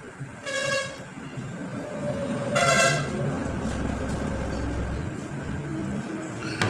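A horn honks twice, two short steady toots about two seconds apart, the second a little longer and louder.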